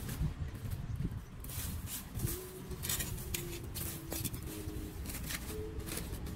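Dry leaves rustling and a plastic bag crinkling as leaf litter is scooped off a street drain grate, heard as a run of short crackles and scrapes over a steady low rumble. A faint wavering tone comes and goes from about two seconds in.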